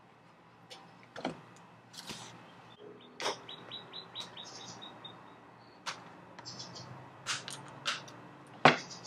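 Screwdriver prying and scraping at the underside of an old bicycle saddle to work its old cover loose: irregular clicks and scrapes, a quick run of high chirping squeaks about three seconds in, and a sharp click near the end, the loudest sound.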